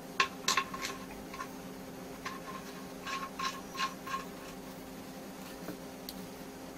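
Light, irregular clicks and taps as a microscope stand's pillar is fitted into its base plate, about nine of them over the first four seconds. A steady low hum lies under them.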